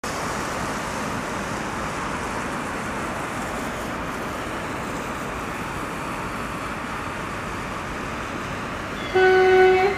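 DR1A diesel multiple unit approaching with a steady running noise, then a short, loud horn blast about nine seconds in.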